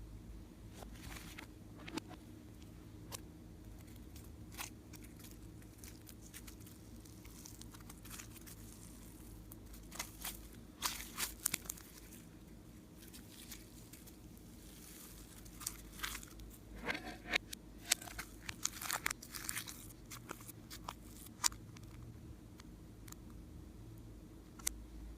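Slime being squeezed and stretched by hand, giving scattered sticky clicks and crackles. The crackles come thicker about ten seconds in and again from about sixteen to twenty seconds, over a steady low hum.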